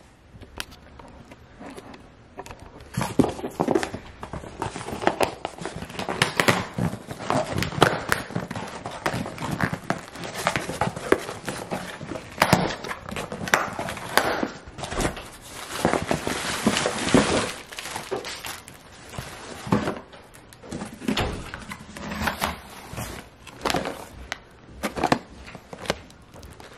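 Cardboard shipping package being torn and pulled open by hand: an irregular run of tearing and rustling noises with sharp knocks as the package is handled.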